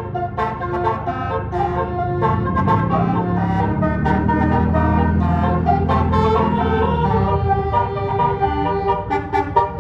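Bus telolet basuri multi-tone horn playing a melody of quickly changing notes, with a low engine rumble swelling under it in the middle.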